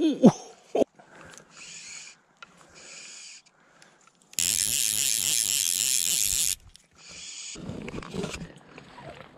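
Fly reel's click-and-pawl ratchet buzzing in several bursts as line is pulled off it. The longest and loudest run lasts about two seconds past the middle, as a hooked trout takes line.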